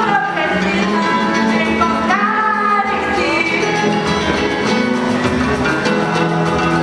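A song playing: a voice singing over instrumental backing.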